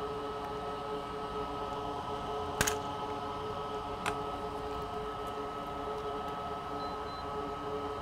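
Steady electrical hum with a few constant pitches, broken by two light clicks about a second and a half apart.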